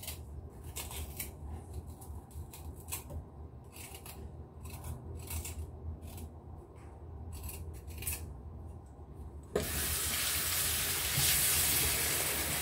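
A small blade scraping the skin off a lotus root in short, irregular strokes. About ten seconds in, the kitchen tap is turned on and water runs steadily into the sink, louder than the scraping.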